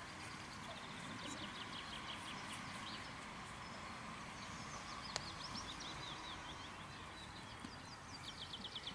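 Songbirds singing: rapid trills of short, high notes repeated in runs over a steady outdoor background hiss. A single sharp click sounds about five seconds in.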